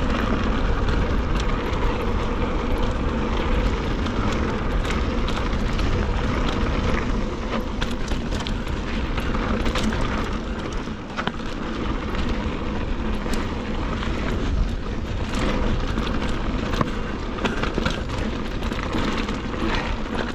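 Mountain bike rolling fast over a dry dirt and rocky trail: tyres crunching on dirt and loose stones, with frequent small clicks and rattles from the stones and the bike, under a steady rush of wind noise on the handlebar-mounted camera's microphone.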